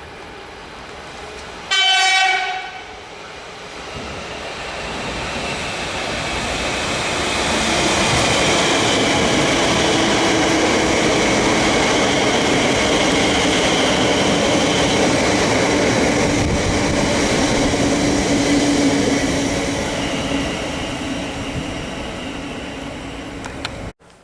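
A short blast of a Metro electric train's horn, then the train comes in close with a rising rush of wheel and motor noise, loudest for about ten seconds before easing off; the sound cuts off suddenly near the end.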